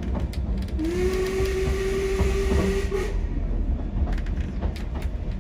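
Narrow-gauge steam train running, heard from inside a carriage: a steady low rumble with scattered clicks from the wheels. About a second in, the steam locomotive's whistle sounds one long steady note lasting about two seconds.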